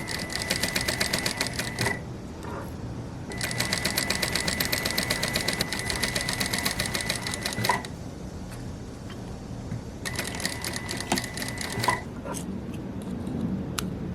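Sewing machine stitching in three runs, about two, four and two seconds long, with short pauses and a few clicks between them.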